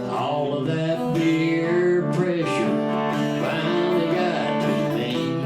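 Acoustic guitar strummed with a man singing over it, a song performed live.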